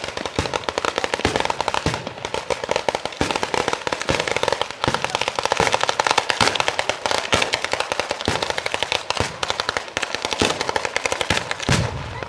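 A batteria bolognese, a long chain of firecrackers laid on the ground, going off in rapid, continuous cracking, many sharp bangs a second, with a heavier bang near the end.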